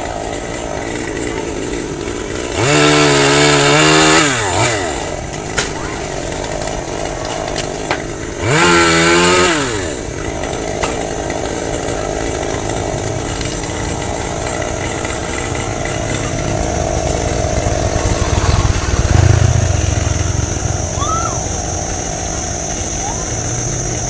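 Chainsaw revved hard twice, each burst about one and a half seconds long, its pitch sweeping up and then down, over a steady running hum. A high steady whine comes in near the end.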